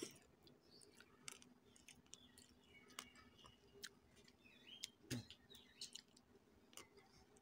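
Near silence, broken by a few faint, scattered clicks.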